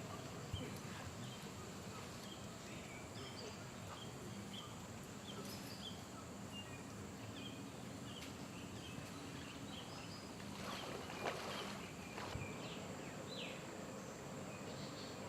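Small birds chirping: many short, high chirps over a steady outdoor background noise, with a brief louder noise about eleven seconds in.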